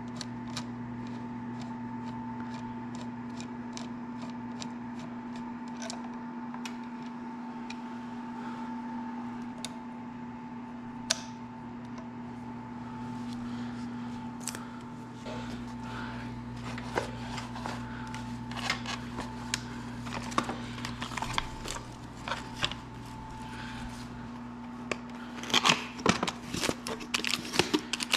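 Scattered clicks and clinks of hand tools and metal parts being handled while working on a motorcycle's front end, growing busier and louder near the end, over a steady low hum.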